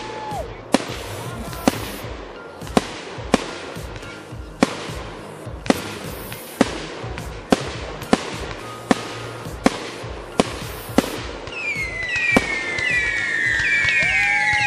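Fireworks exploding overhead, a string of sharp bangs about one a second, with music playing underneath. Near the end a cluster of shrill whistles sounds together, each falling in pitch.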